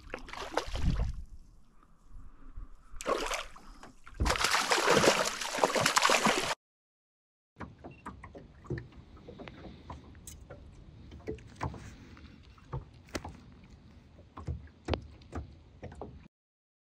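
Water splashing and sloshing at the side of a small aluminium boat as a hooked trout is brought in, in several loud bursts with the longest about four seconds in. After a short break, quieter handling in the boat with a scatter of sharp knocks and taps.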